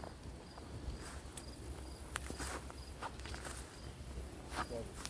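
Insects, most likely crickets, chirping in short evenly spaced pulses, with scattered rustling steps through dense undergrowth.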